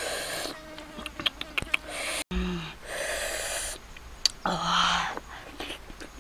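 A person slurping and sucking boiled snails out of their shells, in three breathy slurps with small wet mouth clicks between them and a short low hum before some of them.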